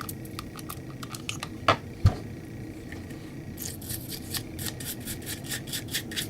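Pistol parts being cleaned by hand: two sharp clicks as parts are handled, then quick, even scrubbing strokes, about five a second, starting a little past halfway.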